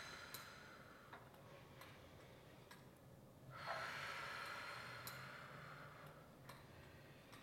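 A person's breathing during Pilates reformer exercise: one breath tailing off at the start and another about three and a half seconds in, lasting a few seconds, with a few faint clicks in between.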